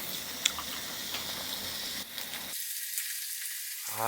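Five-layer pork belly sizzling on a tabletop charcoal grill, with a few small pops. About two and a half seconds in, the low part of the sound cuts off abruptly, leaving only a thin high hiss, and a voice starts near the end.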